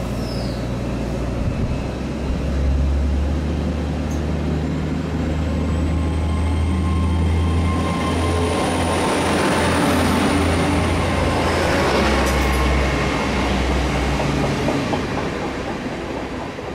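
GWR Class 802 bi-mode train passing close by on its diesel engines, with a steady low engine drone and wheels rumbling on the rails as the coaches go past. A faint high whine rises in pitch and then holds through the middle, and the sound eases off near the end.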